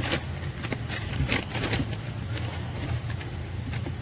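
Scattered light plastic clicks and knocks as a car's brake light switch is worked loose by hand, over a steady low hum.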